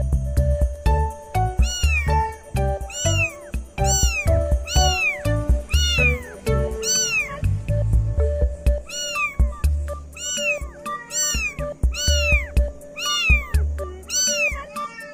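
A kitten mewing over and over: short, high-pitched meows, each rising then falling, about one or two a second, over background music with a steady beat.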